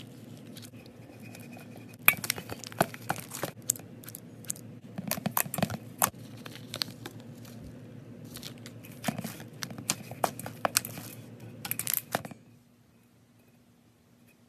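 Slime-filled stress balls being cut with scissors and squeezed, giving bursts of crackling and crunching, including the crunch of foam-bead slime. The sound stops about two seconds before the end, leaving only a faint hum.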